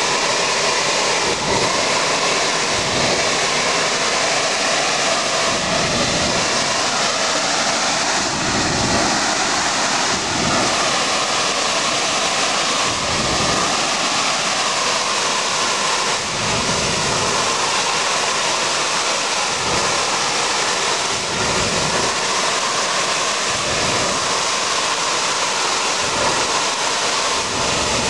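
Crude oil escaping as gas under pressure from a ruptured oil pipeline: a loud, steady hiss of the jetting leak.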